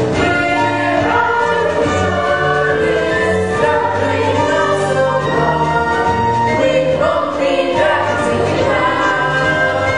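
Music with a choir singing sustained notes.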